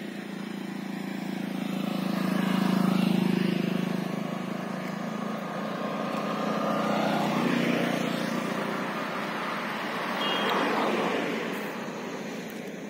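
Motor vehicles, among them a motorcycle, passing one after another on a road. Engine and tyre noise swells up and fades away three times.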